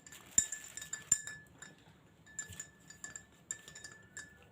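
Cutlery clinking against dishes. Two sharp clinks in the first second or so ring briefly, and lighter clinks follow.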